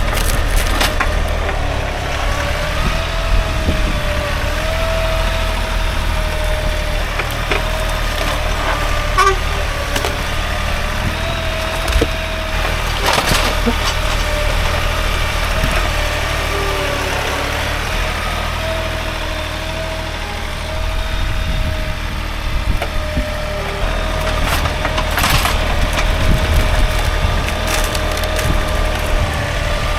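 Husqvarna chainsaw running steadily while cutting white oak logs, its engine pitch wavering a little as the chain bites into the wood, with scattered sharp cracks of wood.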